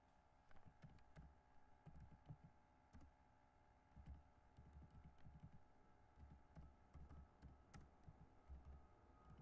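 Faint typing on a computer keyboard: irregular key clicks and taps at an uneven pace.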